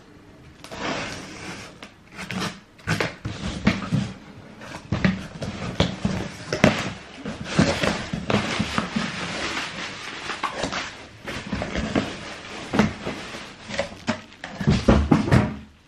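Irregular rustling and crinkling of shoe packaging, paper and plastic wrapping, with knocks and bumps from handling the shoes and boxes, and a louder flurry just before the end.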